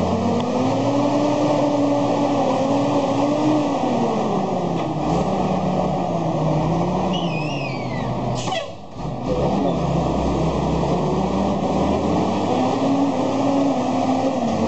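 Old cargo truck's engine working hard under load in deep mud, its pitch rising and falling as the throttle is worked. A short falling whistle comes just past the middle, then a brief dip in level before the engine comes back.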